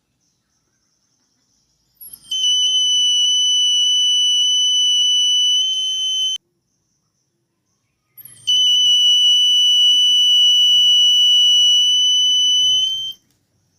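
Buzzer of a homemade fire-sensor alarm circuit sounding a steady, piercing high-pitched tone, triggered by its flame sensor. It sounds for about four seconds, stops, then sounds again for about five seconds.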